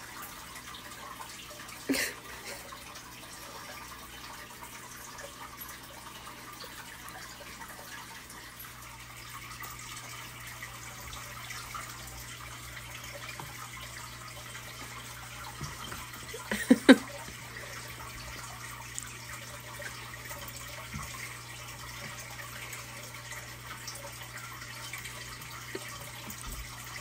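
Steady hiss of background noise, like distant running water, over a low steady hum. There is a sharp knock about two seconds in and a brief louder cluster of bumps a little past the middle.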